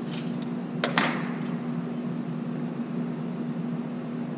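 A cleco fastener being taken out of sheet metal with cleco pliers: a few small clicks, then one sharp metallic clink about a second in. A steady low hum runs underneath.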